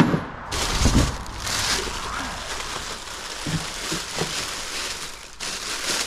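Thin plastic parts bag crinkling and rustling as hands rummage through the fittings inside it, with a couple of dull knocks in the first second.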